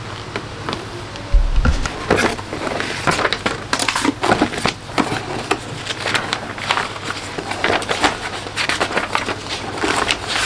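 Paper rustling and crinkling as a model kit's large instruction sheets are lifted, unfolded and leafed through. There is a dull thump about a second and a half in.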